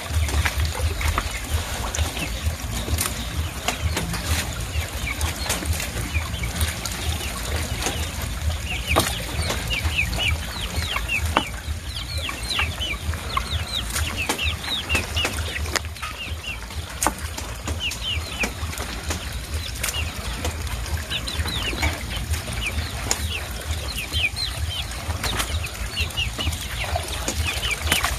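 Hands sorting through a wet fine-mesh net in shallow water, with small splashes and knocks, over a low rumble. From about nine seconds in, a chicken calls in runs of short, high, falling notes that repeat again and again.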